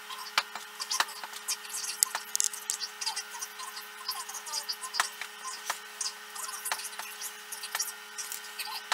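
A steady electrical hum with irregular sharp clicks and ticks over it, one to three a second, from hands handling cables and parts during wiring work.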